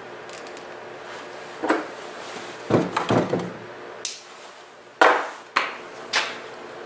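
Handling noise: a series of irregular knocks and scrapes as wires, braided sleeving and tubing are handled against the aluminium frame of a delta 3D printer, the loudest about five seconds in.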